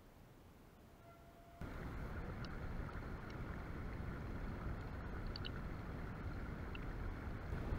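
Shallow stream rushing and gurgling over stones close by, cutting in suddenly about a second and a half in, with a few faint high chirps over it.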